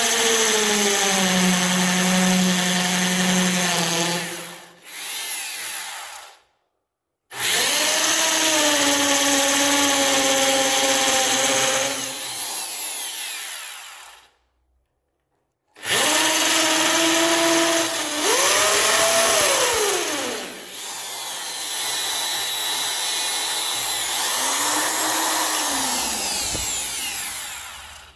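Handheld power drill boring holes through a wooden slingshot base. The motor whines in three long runs with brief stops between, its pitch sagging as the bit bites into the wood and rising again as it frees.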